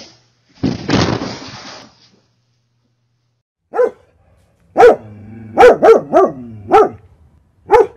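A dog barking: seven short, sharp barks, several in quick succession, starting about four seconds in. A brief rushing noise comes about a second in, before the barks.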